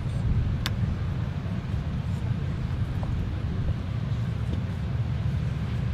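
Steady low outdoor rumble, with a single sharp click about half a second in.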